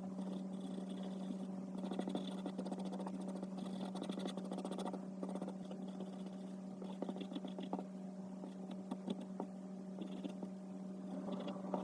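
Faint, rapid scratching of a pastel pencil shading on paper, over a steady low electrical hum.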